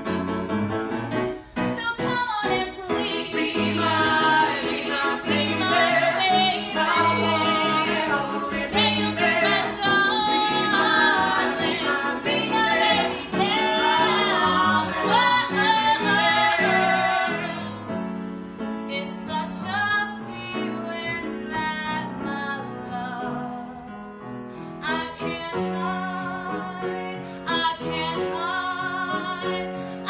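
A woman's belted alto voice singing a song over piano accompaniment, with wavering held notes building to a loud stretch; about eighteen seconds in the music drops to a softer passage.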